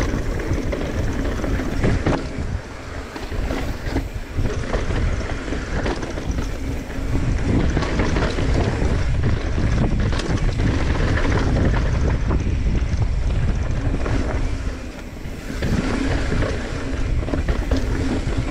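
Wind buffeting the handlebar microphone and knobby tyres rolling and skidding over dirt and rocks as a mountain bike descends a trail at speed, with a steady clatter of the bike over roots and rocks. The rush eases briefly about fifteen seconds in.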